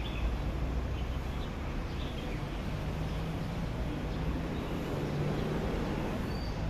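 Outdoor city background: a steady low hum of traffic, with a few short bird chirps.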